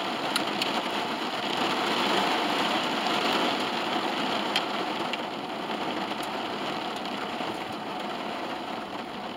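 Steady rain falling on the car's roof and windows, heard from inside the cabin, with a few sharper ticks.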